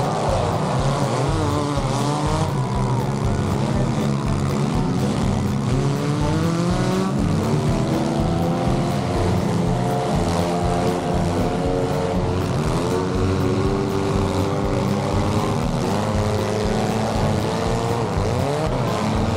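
Several demolition-derby car engines revving and running together, their pitches rising and falling as they accelerate and back off.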